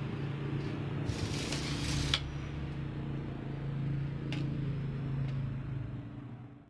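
A steel tape measure retracting with a rattling whir for about a second, ending in a snap as it closes, then a couple of light clicks. A steady low hum runs underneath and fades near the end.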